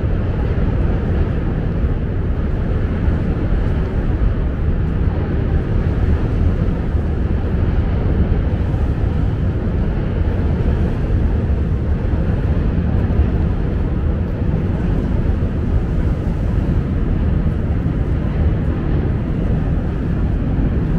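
Steady low rumble of outdoor city background noise, even throughout with no distinct events.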